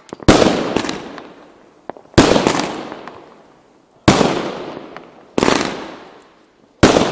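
Lesli consumer fireworks bursting: five loud bangs, about one every one and a half to two seconds, each followed by a long fading echo. A few smaller pops come between them.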